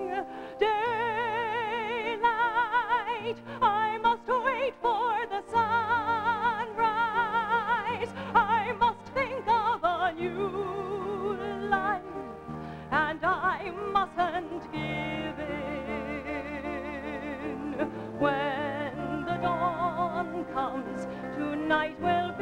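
A woman singing in a musical-theatre style, with wide vibrato and long held notes, over sustained orchestral accompaniment.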